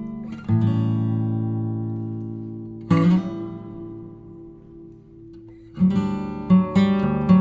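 Background music: acoustic guitar chords strummed and left to ring out, slowly at first, then several quicker strums near the end.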